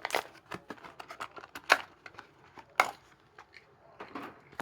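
A Hot Wheels car's plastic blister and cardboard backing card being torn open by hand: irregular crinkling with sharp clicks and snaps. The loudest snaps come near the start, at about a third of the way in and at about two-thirds of the way in.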